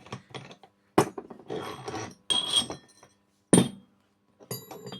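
Metal parts and tools being handled and set down on a workbench: a few sharp clanks, the loudest about a second in and about three and a half seconds in, with short metallic ringing and clinking between them.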